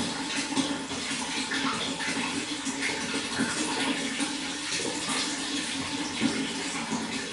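Running water splashing and trickling steadily, with many small splashes throughout.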